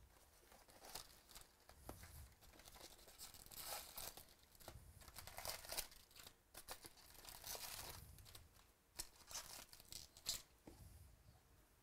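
Wrapping being torn and crinkled in faint, repeated short rustles, with a few sharp clicks, as a box of baseball cards is unwrapped.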